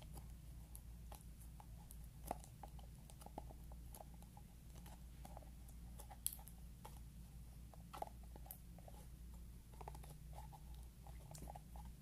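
Faint scattered clicks and taps of a small clear plastic container being turned and handled, with a few louder clicks, over a low steady hum.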